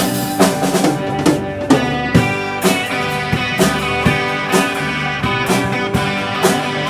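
Instrumental passage of a rock band song: electric guitar over a drum kit keeping a steady beat, with no vocals.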